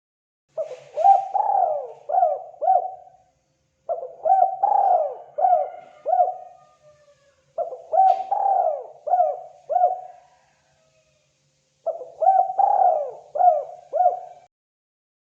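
Spotted dove cooing: four phrases, each a run of four or five short, downward-bending coos lasting two to three seconds, with pauses of about a second between them.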